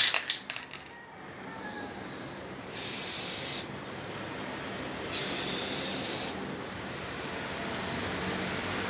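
Aerosol spray paint can spraying in two short bursts, each about a second long, a loud high hiss that starts and stops abruptly, as paint is sprayed onto a table saw miter gauge.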